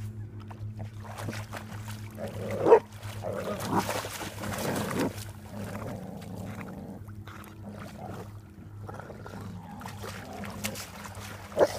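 Dogs swimming and wading in lake water, with a short, loud dog bark falling in pitch nearly three seconds in and another just before the end.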